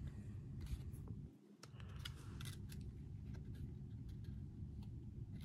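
Cardboard trading cards being handled: faint scattered clicks and scrapes as cards slide against each other off a stack, over a low steady hum.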